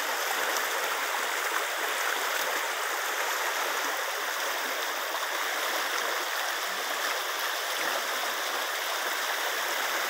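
River water flowing, a steady even rushing with no breaks.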